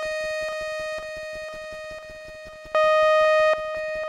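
A sawtooth note from a software synthesizer's analog-style generator, held at one pitch. Its filter is being swept: the note grows duller and quieter in steps about every half second. About three seconds in it snaps back bright and loud, then dulls again.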